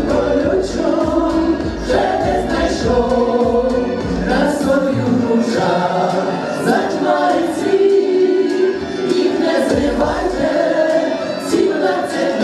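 A group of women singing a Ukrainian folk-style song together, accompanied by an accordion.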